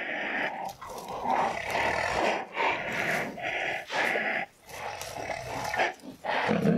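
White rhinos hissing and snorting while feeding: a run of short breathy bursts, one or two a second, the hiss that feeding rhinos, the females above all, use as a proximity warning to keep others off their food. A low pitched growl starts near the end.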